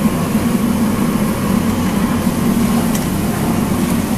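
Steady low mechanical hum of kitchen equipment, with a faint click about three seconds in.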